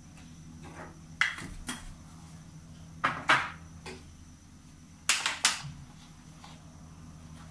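A few sharp knocks and clicks of hard objects being handled, in three brief clusters about two seconds apart, over a faint steady hum.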